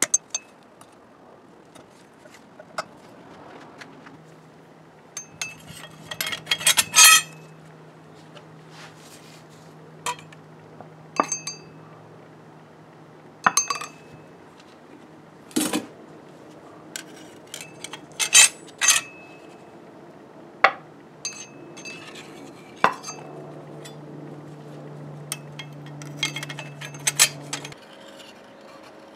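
Metal-on-metal clinks and taps from tools and parts against a Ford Model T planetary transmission's drums and gears: scattered sharp knocks that ring briefly, with a quick flurry about six seconds in and another near the middle. A low steady hum comes in twice beneath them.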